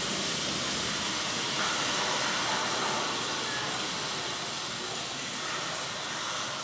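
Rainstorm sound played by an immersive nature projection: a steady hiss of heavy rainfall, easing slightly about halfway through.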